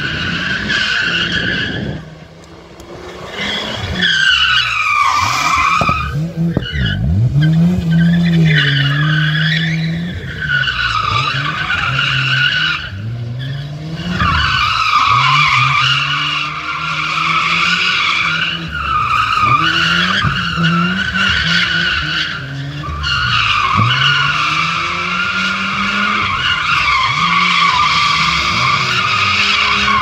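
A sports car's engine revving up and down again and again as it drives a cone course, with its tyres squealing through long slides. The squeal is nearly unbroken in the second half, and the engine dips briefly near the start.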